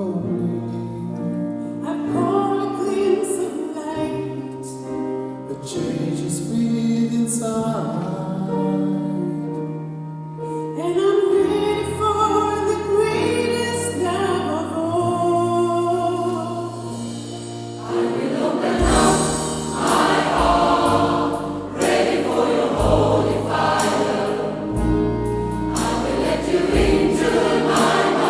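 Gospel choir singing with band accompaniment. About 19 seconds in, the sound grows fuller, with a strong bass line and a steady beat of strikes.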